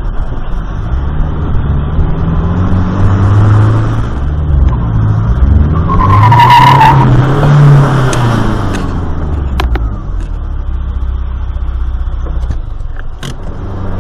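Car engine revved hard, its pitch climbing and dropping several times as it is pushed through the gears, heard from inside the cabin. About six seconds in the tyres squeal briefly as the wheels spin, and after that the engine settles to a steadier, quieter run.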